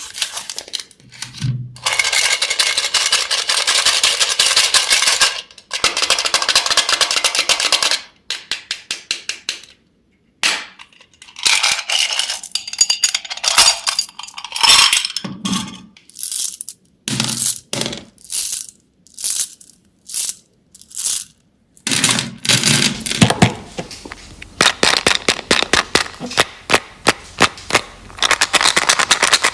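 Close-up candy ASMR sounds: dense crackling and sharp clicks in bursts. There are long stretches of fast crackle, broken up by looser single clicks and a brief pause about ten seconds in.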